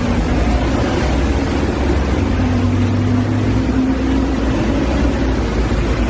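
A moving vehicle's steady rumble and low engine drone, loud and unbroken.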